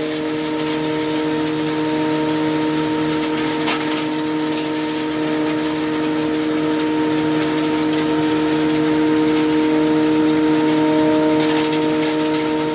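Model 198 hammer mill with a 5.3 hp single-phase electric motor running at speed with a steady drone and a few constant pitched tones, grinding wood sawdust and chunks fed into its hopper through a 2 mm screen. A few faint ticks break through the steady noise.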